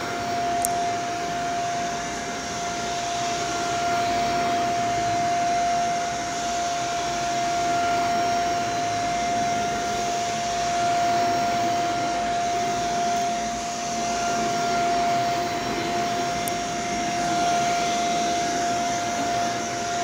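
Bagless upright vacuum cleaner running on carpet: a steady motor whine over the rush of suction, its level swelling and dipping a little every few seconds.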